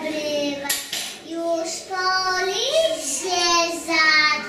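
A group of young children singing a song together in held notes, with a brief break about a second in and a sharp click just before it.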